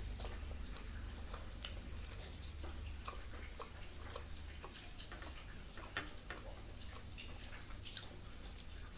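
Close-miked eating sounds: irregular wet mouth clicks and smacks of chewing, over a steady low hum.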